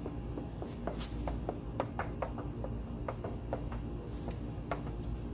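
Small plastic squeegee being worked over wet protective film on a Tesla Model 3 headlight lens: a run of short, sharp clicks and squeaks at irregular intervals, over a steady low rumble.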